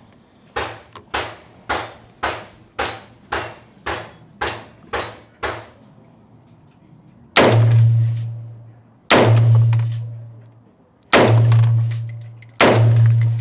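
Gunfire on a covered shooting range: about ten lighter shots at roughly two a second, then four much louder, heavier shots a second and a half to two seconds apart. Each of the heavy shots leaves a long, low echo.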